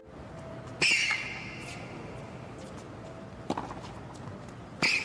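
Tennis ball on a hard court: two sharp strikes about four seconds apart, each with a short ringing tail, and a softer ball bounce between them, in a hushed stadium.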